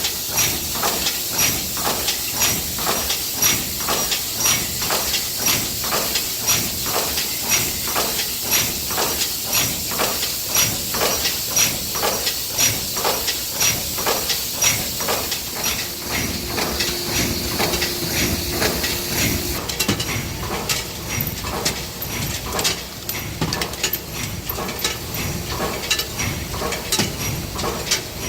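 Yeswin YBF19B5S five-station bolt-forming press running, its ram striking in a steady rhythm of about two blows a second over a continuous hiss. The hiss weakens about two-thirds of the way through.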